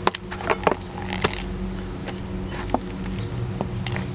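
A leather boot stomping on and crushing a cardboard Pringles potato-chip can: a series of sharp crunches and cracks as the tube gives way, several in the first second and a few more spread through the rest.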